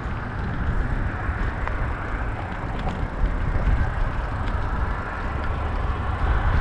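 Riding a bicycle: a steady low rumble of wind on the microphone over the hiss of tyres rolling, with a few faint ticks.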